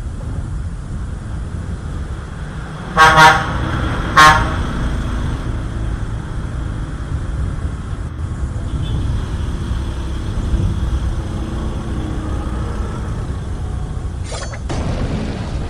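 Two short horn honks about a second apart over a steady low rumble.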